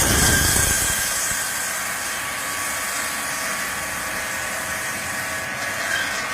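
Block-ice cutting machine's gang of circular saw blades (one large splitting blade and eleven smaller cutting blades) sawing through a block of ice: a steady hissing grind with a few faint whining tones, heaviest in the first second.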